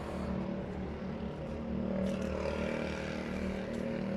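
A vehicle engine running steadily, a low even hum, with hiss rising in the background about two seconds in.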